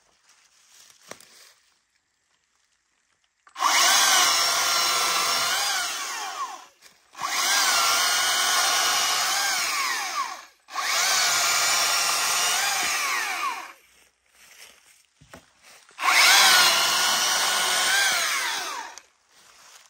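Stihl MSA 300 36-volt battery chainsaw cutting dry wood in its second power mode: four cuts of about three seconds each, separated by short pauses, with the electric motor's whine changing pitch as the chain bites.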